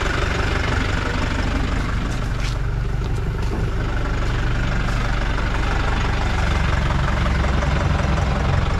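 Mahindra pickup truck's engine idling steadily after a cold start, running again after standing unused for years.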